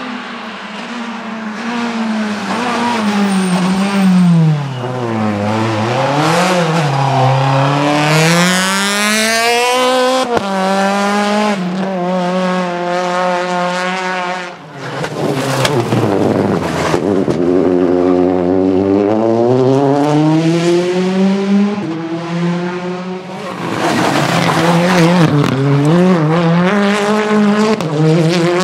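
Rally car engines at speed, revving up and falling back through the gears over and over. A short lull in the middle comes before the engine sound builds again.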